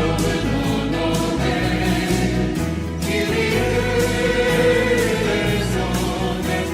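A choir singing a hymn with instrumental accompaniment under it.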